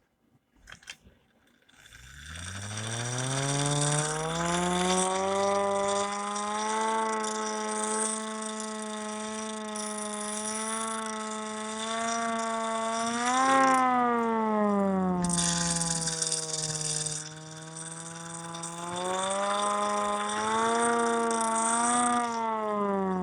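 Hand-crank air raid siren spun up by hand, its impeller chopping air out through the ports: the wail rises in pitch about two seconds in and then holds steady. It briefly rises and dips near the middle, swells again later and starts to fall at the end, with the crank gearing rattling underneath.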